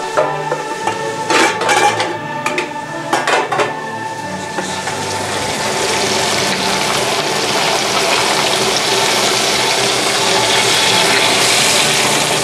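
Nile perch fillets sizzling in hot oil in a frying pan. A few sharp clinks and knocks of cookware come in the first few seconds, then from about five seconds in the sizzle builds into a steady loud hiss.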